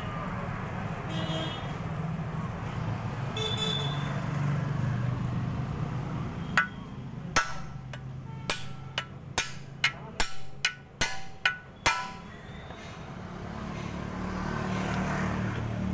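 Hammer blows on a rivet punch, setting the rivets that hold new lining to a truck drum-brake shoe: about a dozen sharp metallic strikes with a short ring, starting about halfway through and coming faster toward the end. A steady low hum lies underneath.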